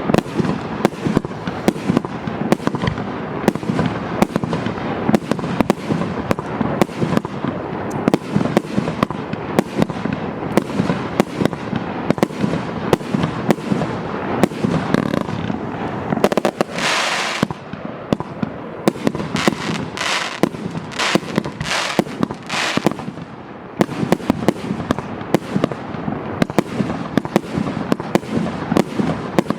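A 200-shot firework cake of 1.2-inch tubes firing in rapid succession, a sharp launch and burst about two to three times a second without a break. About halfway through, a longer hissing burst stands out among the shots.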